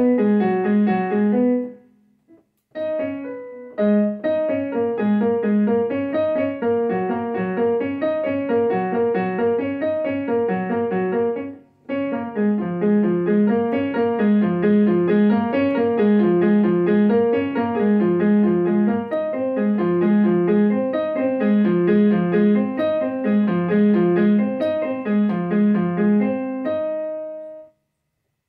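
Electronic keyboard played with a piano sound in repeating arpeggio patterns running up and down through minor seventh chords. The playing pauses briefly about two seconds in and again about twelve seconds in, and ends on a held chord that fades out near the end.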